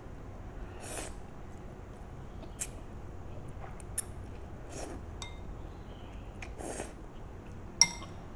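Eating noodles from a ceramic bowl: a few soft slurps and light clinks of chopsticks against the bowl, the sharpest clink near the end.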